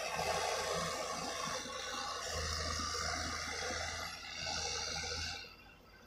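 Heavy diesel earthmoving machinery running: an excavator close by, with a bulldozer working soil. A deeper engine hum comes in about two seconds in, and the noise drops away sharply near the end.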